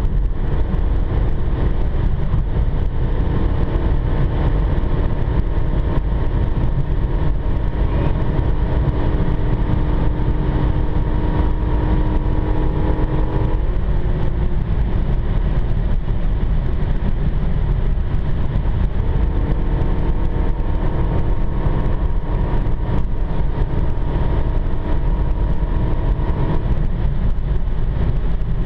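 Steady cabin noise of a Renault Mégane RS 265 cruising at motorway speed: tyre, wind and engine noise, with a steady droning hum that comes in twice, for about ten seconds and then for about seven.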